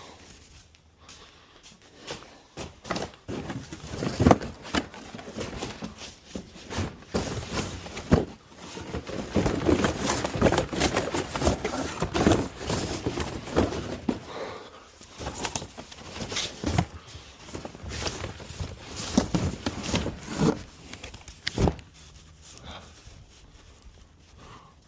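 Construction garbage being loaded into a trailer by hand: irregular thumps, knocks and clatter with rustling and scraping. The loudest hits come about four and eight seconds in, and the handling dies down near the end.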